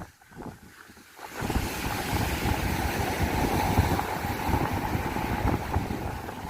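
Wind buffeting the microphone at the sea, with the wash of surf, starting a little over a second in after a brief lull.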